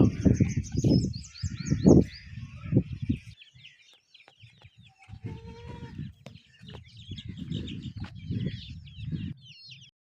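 Farmyard birds: many small birds chirping throughout, with chickens clucking. Irregular low rumbling bumps come and go, loudest in the first three seconds.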